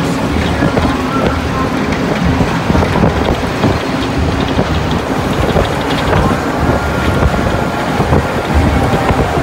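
Wind rushing and buffeting on the microphone over the steady running and road noise of a moving car, heard from a car with its window open.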